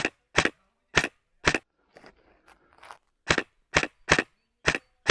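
Airsoft gun firing single shots, about two a second, in two strings of four and five shots with a pause of nearly two seconds between.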